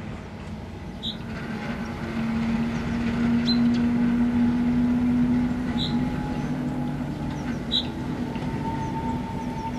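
Class 08 diesel-electric shunter, with its English Electric six-cylinder engine, running as it moves slowly along the yard tracks: a steady rumble with a low drone that swells in the middle. A short high squeak comes about every two seconds.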